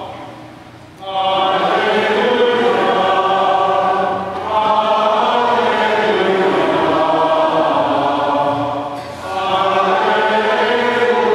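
Choir singing chant in long sustained phrases, coming in about a second in, with short pauses a little after four seconds and about nine seconds in.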